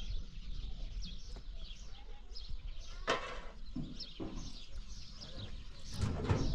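Animal calls: two brief louder calls about three and six seconds in, over many short high chirps of small birds and a low rumble.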